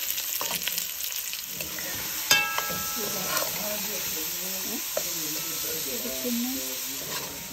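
Chopped vegetables sizzling in hot oil in a frying pan while a metal spoon stirs and scrapes them, with light clicks of the spoon against the pan and one sharper, ringing clink about two seconds in.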